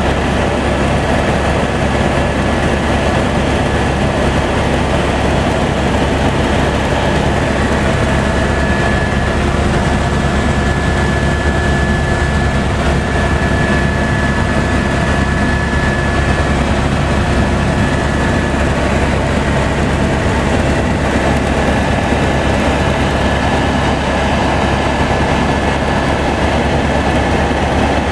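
Helicopter in flight heard from inside the cabin: a loud, steady drone with a faint steady high tone.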